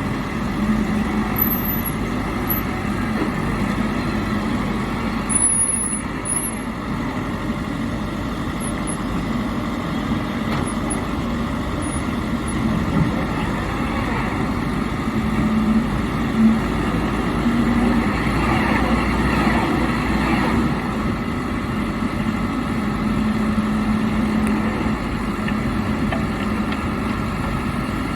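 Backhoe loader's engine running steadily, a continuous noisy mechanical rumble.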